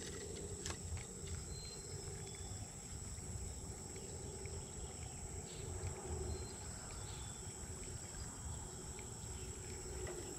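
Insects trilling steadily at a high pitch, over a low rumble and a faint wavering hum.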